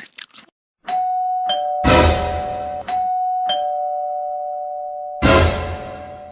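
Two-tone doorbell chime sounding 'ding-dong' twice, each high-then-low pair of tones ringing on and slowly dying away. Each ding-dong is followed by a loud noise burst lasting about a second, and a moment of crunching chewing fades out just at the start.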